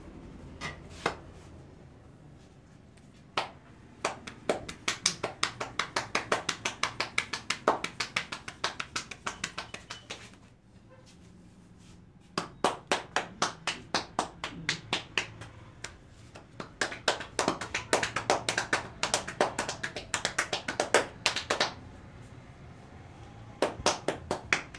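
Hands tapping and clapping rapidly on a person's head in a percussive head massage: runs of sharp, even slaps about four a second, in several bursts broken by short pauses.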